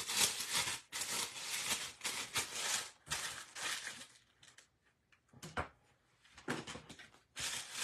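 Clear plastic frosting bag crinkling as it is twisted and squeezed by hand, in dense rustling bursts over the first three seconds, then a few scattered crackles and taps.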